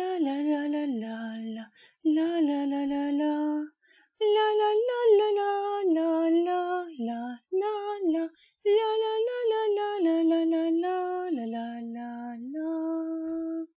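A woman singing a slow wordless melody on 'la', unaccompanied, in short phrases of held notes with brief breaks between them; the singing stops just before the end.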